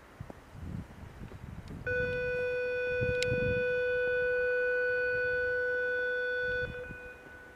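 A single steady horn-like tone at one unchanging pitch, starting about two seconds in, held for about five seconds and then cutting off.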